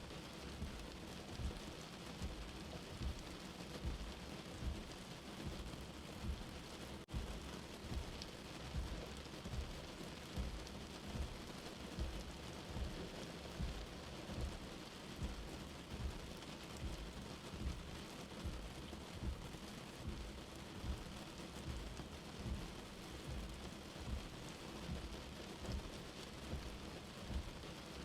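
Rain falling steadily, with soft low thuds recurring about once a second.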